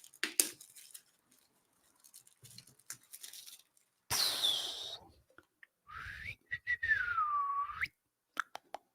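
A tight cardboard box being opened. Its lid or inner tray slides out with a whistling squeak whose pitch falls and then rises, and light clicks and taps of handling the packaging follow near the end.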